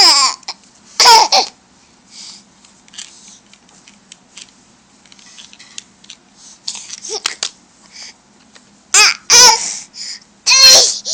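A young child's high-pitched laughing squeals and babble in short loud bursts: twice at the start, then again after a quieter stretch, about nine seconds in.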